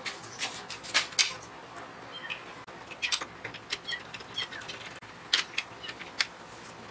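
Irregular metallic clicks and clinks of an electric motor and its pulley being handled and set against a cast-iron worm gearbox, with a few sharper knocks about a second in and again past the middle.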